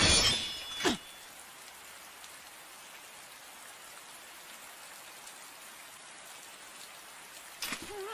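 A sudden whoosh and hit with a brief metallic ring in the first second as a sword is hurled. Then steady rain falling.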